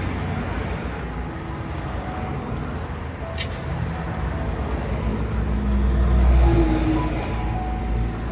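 Highway traffic: a steady low rumble of cars and trucks going by, swelling as one vehicle passes close about six to seven seconds in. A brief high hiss sounds about three and a half seconds in.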